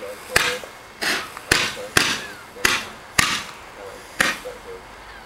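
Roman candle firing its stars one after another: seven sharp pops, roughly one every half-second to second.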